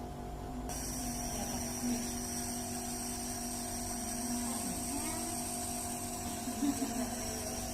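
A steady electrical hum made of several steady tones. A high-pitched whine joins it just under a second in.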